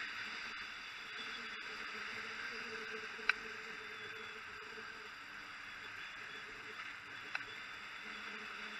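Ship under way at sea: a steady drone of the vessel's engine and the rush of water along the hull. Two brief sharp clicks, about three and seven seconds in.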